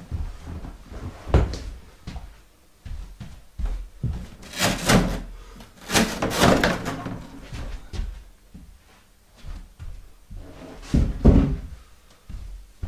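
Mobility scooter's plastic body shroud being handled and lifted off, with a series of hollow plastic knocks and thumps against the frame, loudest in the middle and again near the end.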